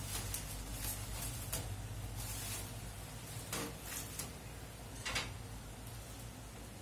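Bubble wrap rustling and crinkling in irregular bursts as it is handled and pulled, over a low steady hum.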